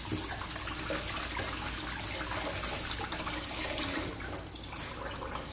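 Water running steadily, like a tap left on.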